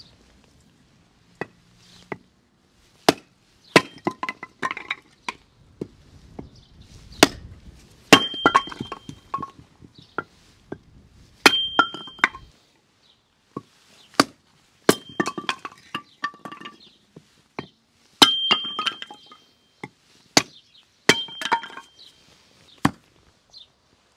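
Kitchen prep: sharp, irregular knocks of utensils on hard surfaces. Every few seconds comes a brighter clink with a short ringing tone, like metal striking a bowl or dish.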